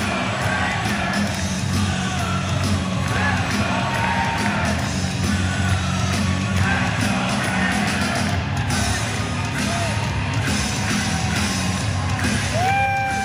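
Arena PA music playing over a crowd cheering, yelling and singing along in a hockey rink, as at a goal celebration. Near the end a clear held tone cuts in and bends down in pitch.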